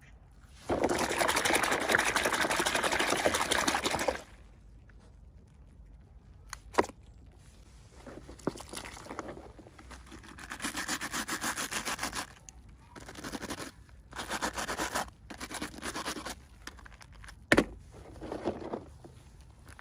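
Packaging and small toys being handled and unwrapped, heard as bursts of rustling and scraping. The longest burst starts about a second in and lasts about three seconds; shorter bursts follow, and there are two sharp clicks.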